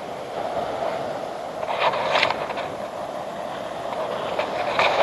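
Two short scraping bursts of digging into beach sand, about two seconds in and again near the end, over steady surf and wind noise.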